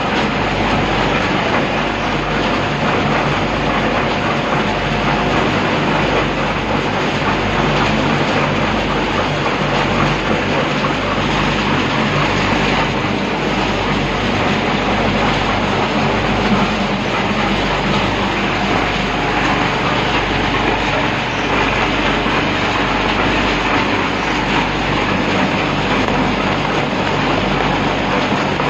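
Paver block machinery running: a concrete pan mixer and a vibrating table give a loud, dense, steady rattle over a low hum.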